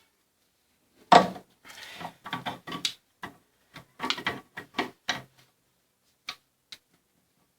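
Hammer knocking on the jammed clamping flange of an angle grinder's spindle to break it loose: one sharp strike about a second in, then a run of irregular metal knocks at about three a second, and two light taps near the end.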